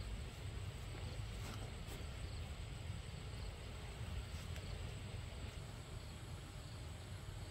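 Steady outdoor background noise: a low rumble, with a few faint clicks.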